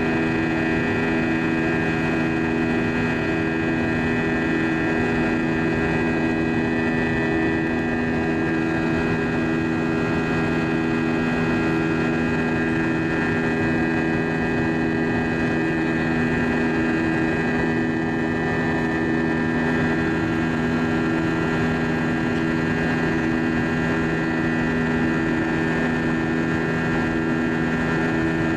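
Airbus A320-232 cabin noise during the climb after takeoff, heard at a window seat beside the wing: the IAE V2500 turbofan's steady drone with several steady humming tones, some low and a high pair, holding an even level throughout.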